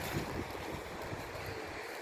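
Wind buffeting the microphone in uneven low rumbles over a steady rushing noise.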